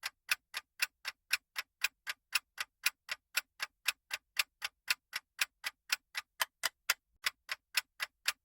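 Countdown-timer clock ticking sound effect: even, clock-like ticks about four a second, alternating louder and softer, marking the seconds given to guess.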